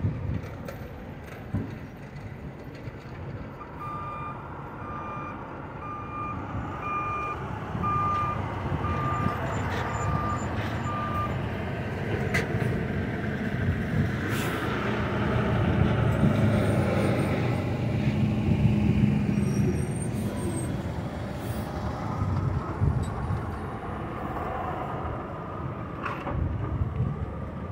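Semi trucks driving past, their engine and road noise building to the loudest pass at about the middle and then fading. In the first part a backup alarm beeps about eight times, roughly once a second.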